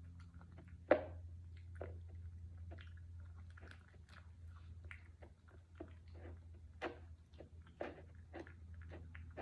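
Dog chewing and crunching its food, with irregular wet clicks and a few sharper crunches.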